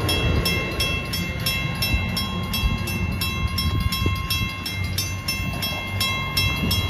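Railroad grade-crossing warning bell ringing rapidly, about three or four strokes a second, over the low rumble of a passing Amtrak passenger train.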